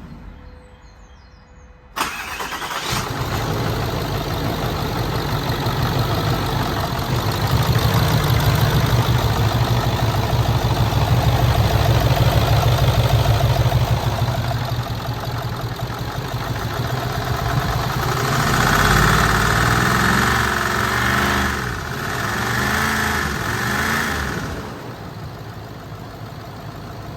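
A removed Land Rover 3.6 TDV8 diesel engine starting about two seconds in and then running. Its speed rises and falls for a few seconds near the end before it settles back. It runs with the slight misfire on cylinder 4 (fault code P0272) that the seller reports, with a wet cylinder pointing to a possible EGR cooler failure.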